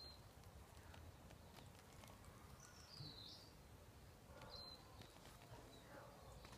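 Near silence: faint outdoor ambience with a few soft, high bird chirps, one a short dipping-then-rising call about three seconds in.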